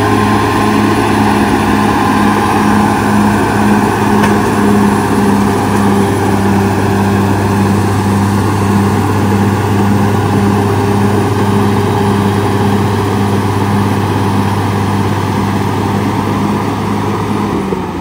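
CAT D6R XL bulldozer's diesel engine running steadily under load as the dozer pushes a blade-load of soil. The engine eases off near the end.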